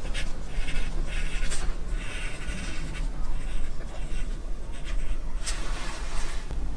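Pencil writing on a sheet of paper on a workbench, a run of short irregular scratches as figures are jotted down, over a steady low hum.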